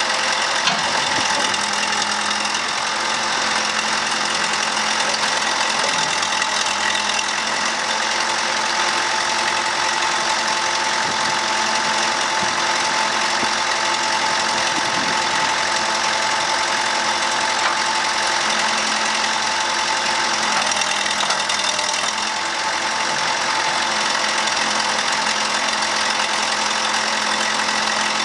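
Case 580C backhoe's engine running steadily, with an even, unchanging note.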